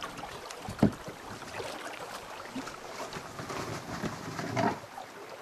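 Paddle strokes splashing and water lapping against the hull of a small paddled boat under way, with one sharp knock about a second in.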